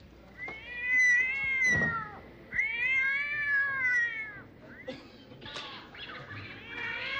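A cat yowling twice: two long drawn-out calls, each rising and then falling in pitch, with a short pause between them.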